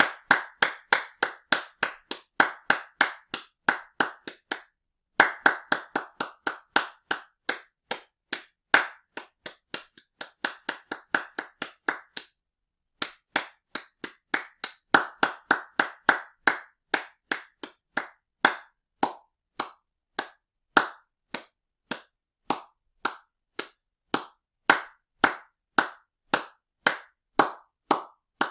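Hands clapping in a steady, even rhythm of about three claps a second, stopping briefly twice.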